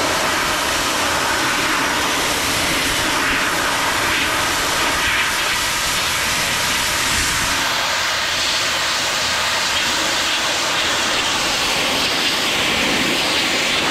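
Hot-water pressure washer spraying a steady jet against a steel truck frame, stripping off the frame's factory coating.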